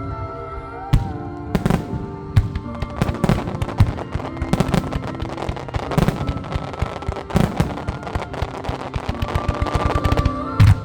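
Fireworks shells bursting over music: a few single booms, then a dense, rapid crackle of many small bursts for several seconds, ending in a loud double boom near the end.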